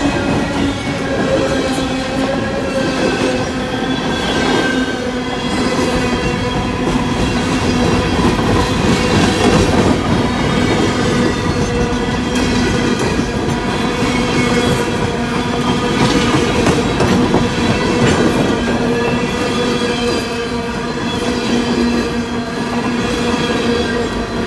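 A CSX freight train's open-top gondola cars rolling past close by: steel wheels rumbling and clacking over the rails, with a steady squealing tone from the wheels on the rail.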